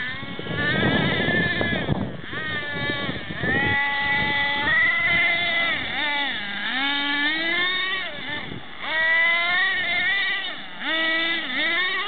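Small nitro engine of a Thunder Tiger MTA-4 radio-controlled monster truck revving up and down again and again under the throttle, its pitch rising and falling as the truck accelerates and backs off. It starts with a rougher, noisier stretch in the first two seconds.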